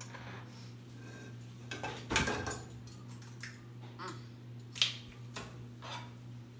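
Cookware clatter at the stove: a few separate knocks of a pan and utensils, the loudest about two seconds in and again near five seconds in, over a steady low hum.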